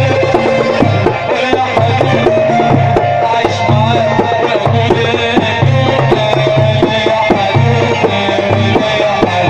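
Port Said simsimiyya folk music played by a band, with hand-drum percussion over a pulsing bass beat and a wavering melody line.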